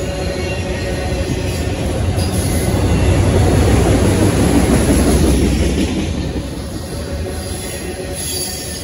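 Autorack freight cars rolling past close by, with a heavy rumble and rattle of steel wheels on the rails. It swells to its loudest in the middle, then eases off again.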